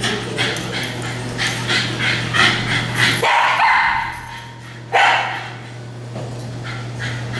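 A dog barking at a trainer holding treats: demand barking. A quick run of short sharp barks, then two louder barks that drop in pitch about three and five seconds in, and a few fainter ones near the end.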